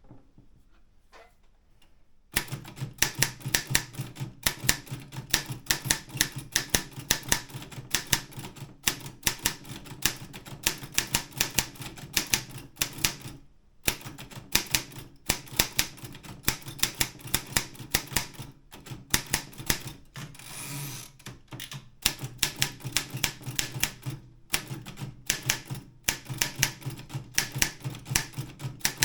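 Optima M12 manual office typewriter being typed on: a fast, uneven run of keystrikes, several a second, starting about two seconds in, with a couple of short pauses. About twenty seconds in there is a brief, smoother rattling slide.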